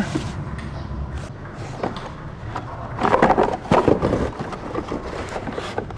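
Handling noises: scattered clicks, then a dense cluster of knocks and rustling about three seconds in, as objects are moved about by hand.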